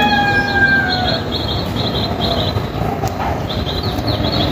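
Small birds chirping in quick series of short high notes, over a steady low rumble. A held, slightly falling tone dies away about a second in.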